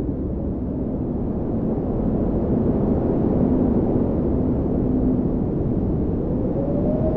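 Wind buffeting a handheld phone's microphone outdoors: a steady low rumble with a faint hum under it.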